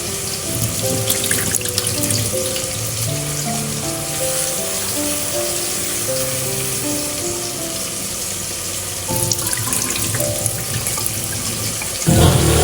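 Gentle background music with a melody, over a steady hiss of kitchen sound. A sudden louder burst of noise comes near the end.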